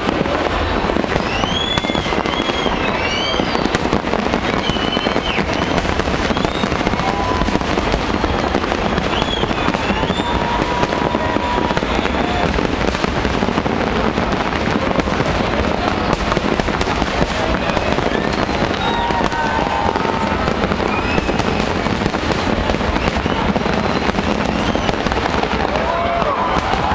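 A large fireworks display going off in a dense, continuous barrage of crackling and bangs, with no let-up, and short high whistling pitches now and then above it.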